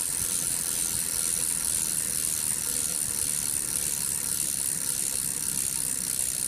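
Freewheel of a road bike's rear hub clicking steadily in a fast, even buzz of ratchet pawls as the wheel turns without pedalling.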